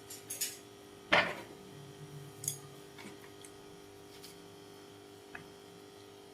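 Light handling sounds at a table while food is rolled in rice paper: a few soft clicks and taps, the loudest a short rustle about a second in, over a faint steady hum.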